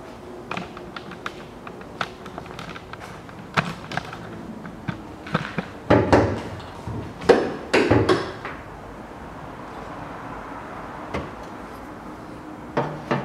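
Bonnet of a 2017 Kia Rio being opened: scattered clicks and knocks, then louder clunks about six to eight seconds in as the bonnet latch is released, the bonnet lifted and propped open.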